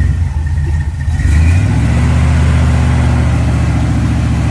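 An off-road 4x4's engine running low and steady, then revving up about a second in and holding the higher revs, as it works under load climbing over rock.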